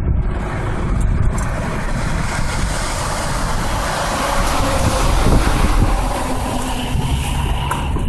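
Nissan Skyline HCR32 engine running, heard right at the tailpipe of its Capton straight-through muffler: a steady low exhaust rumble with a loud rush of exhaust gas over it.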